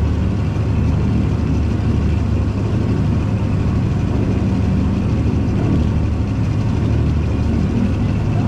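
Hydra-Terra amphibious tour vehicle's engine running steadily as it moves through the water, a low drone mixed with the wash of its wake churning along the hull.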